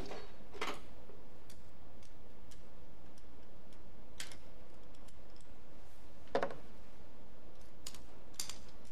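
Scattered light metallic clicks and taps as valve-train parts and a valve spring compressor are handled on a Ford 1.8 16-valve DOHC cylinder head, over a steady background hum; one slightly heavier knock comes about six seconds in.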